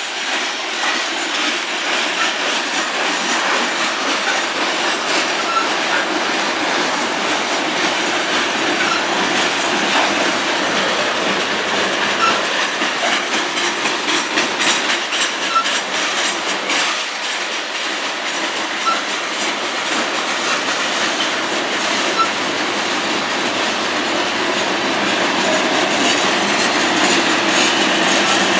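Freight train of covered hopper cars rolling past close by: a steady rumble of steel wheels on rail with repeated clicking over the rail joints and faint short squeaks every second or two.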